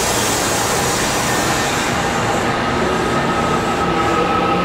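Kintetsu Minami-Osaka Line electric train running at the platform with a steady rumble; about two seconds in, several steady whining tones from its running gear come in over the rumble.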